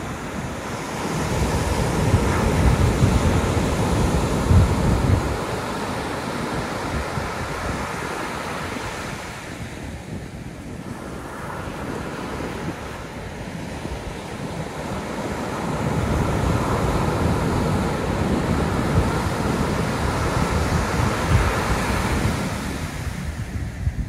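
Pacific Ocean surf breaking and washing up a sandy beach in two loud swells, the first about a second in and the second about sixteen seconds in, with a quieter wash of receding water between them.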